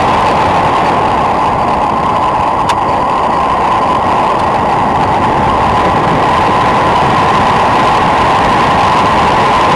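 Steady wind rush over the microphone of a handlebar-mounted camera on a fast road-bike descent, with a constant hum-like tone inside the noise. A single sharp click about three seconds in.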